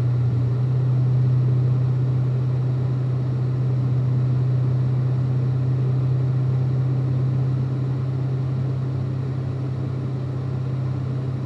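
A car cruising at steady speed, heard from inside the cabin: a constant low engine drone with tyre and road hiss underneath.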